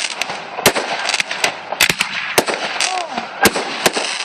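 Fireworks display: irregular sharp bangs of exploding shells, roughly two a second, over a continuous crackle.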